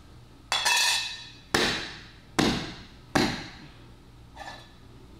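Four sharp hammer blows on metal, about a second apart, each ringing and fading, the first ringing longest; a faint knock follows.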